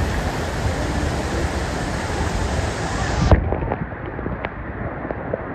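Rushing stream water with wind buffeting the microphone, giving a heavy low rumble. About three seconds in the sound turns abruptly duller, and a few light clicks follow.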